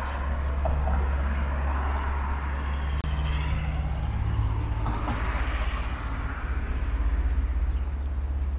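Street traffic ambience: cars passing, their noise swelling and fading twice, over a steady low rumble. The sound breaks off for an instant about three seconds in.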